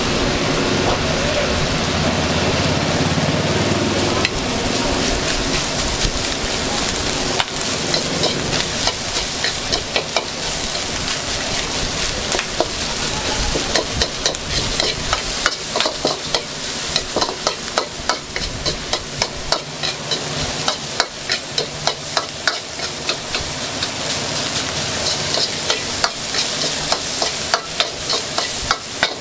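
Fried rice being stir-fried in a wok: a steady sizzle, with a metal spatula clanking and scraping against the wok in quick, irregular strokes from about a quarter of the way in.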